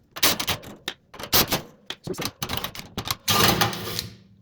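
Quick run of metallic clicks and knocks from hand tools and small parts being handled on a box fan motor, ending in a longer rattling clatter a little past three seconds in.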